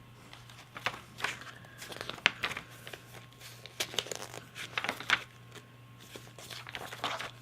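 Paper rustling and crinkling in irregular short rustles as the pages of a small printed booklet are flipped through.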